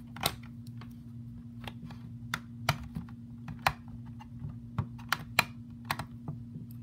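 Irregular small plastic clicks and taps, about a dozen, as an HDMI cable plug is handled and pushed into the port on the back of an Android TV box, over a steady low hum.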